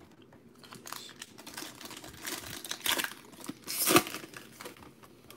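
A foil Panini Prizm baseball-card pack being torn open by hand, the wrapper crinkling in a run of crackles, loudest in a sharp tear about four seconds in.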